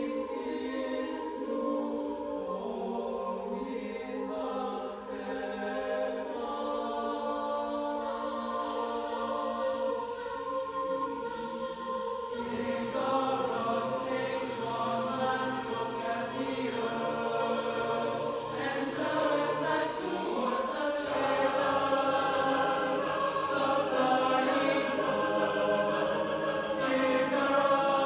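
Mixed choir of women's and men's voices singing held chords. Low voices come in about twelve seconds in, and the singing grows fuller and louder from about twenty seconds.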